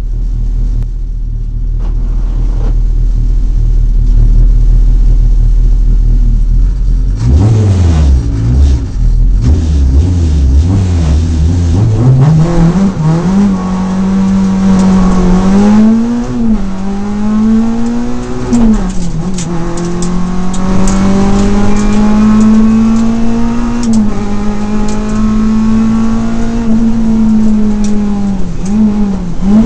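Renault Clio RS rally car's four-cylinder engine heard from inside the cabin: a low steady note for about seven seconds, then accelerating hard, its pitch climbing and dropping sharply at each of several gear changes.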